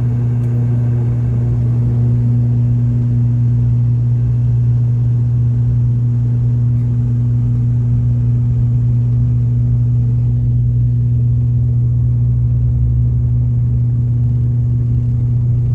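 ATR 72-600 turboprop at high power during the takeoff roll, heard from inside the cabin: the six-bladed propellers give a loud, steady deep hum, with engine and runway rumble beneath it.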